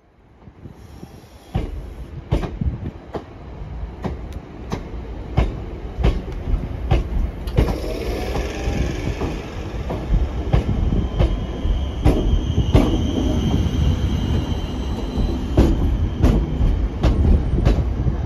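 Class 321 electric multiple unit running past along the platform: its wheels click over rail joints in a regular rhythm over a steady rumble, growing louder as the carriages go by, with a faint whine partway through.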